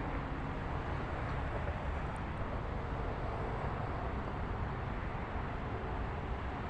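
Steady rumble of vehicle engine and traffic noise, even throughout, with no distinct events.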